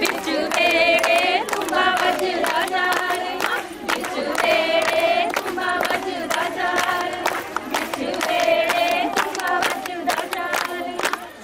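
A group of women singing a Punjabi folk song together in short phrases, over a steady rhythm of hand claps.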